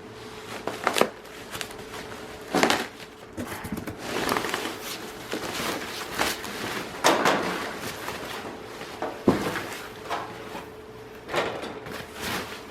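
Cardboard box and packing rustling and scraping, with irregular knocks and bumps, as a boxed fan is lifted out and handled. A faint steady hum runs underneath.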